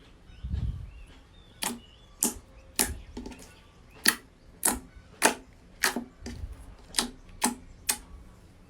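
Slime being pressed and poked, giving sharp clicking pops about every half second, with a soft low thud near the start and again about six seconds in.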